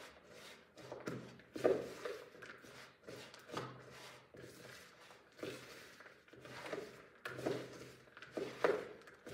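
Stirring a stiff mix of oats, peanuts and melted peanut butter in a large plastic mixing bowl: irregular scraping, rustling strokes, about one a second.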